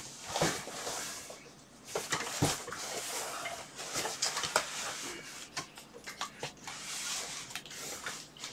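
Large cardboard shipping box being handled: flaps scraping, rustling and creaking, with scattered short knocks and taps against the cardboard.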